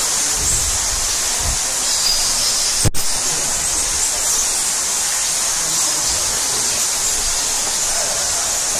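Steady rushing of falling water, with a short thump and a momentary dropout about three seconds in.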